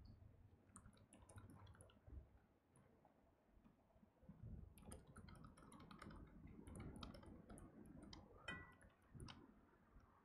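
Faint typing on a laptop keyboard: several short runs of quick key clicks with pauses between them, over a low room hum.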